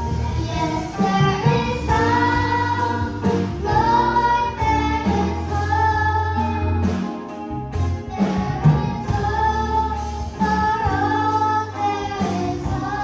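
Children's gospel choir singing with band accompaniment, its melody lines held and sliding over a steady bass line.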